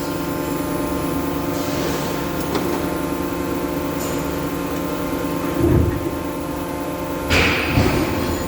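Sheet-metal press running under trial with a cut-punch-and-bend die: a steady machine hum, a low thud about halfway through, and a burst of hissing clatter near the end as the press works the sheet.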